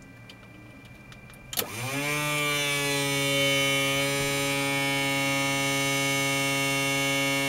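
A click about a second and a half in, then a small electric motor spins up with a rising whine and settles into a steady buzzing hum. It is most likely the Cessna 172's electric auxiliary fuel pump running before engine start while fuel flow is checked.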